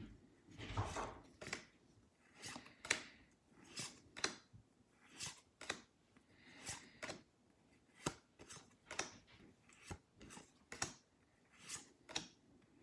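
Pokémon trading cards slid against one another as they are flipped one by one from the front of a small hand-held stack to the back. Each flip is a soft swish followed by a sharp snap, about once every one and a half seconds.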